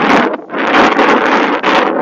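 Wind buffeting the camera's microphone while riding a bicycle: a loud, rough rushing that drops away briefly about half a second in.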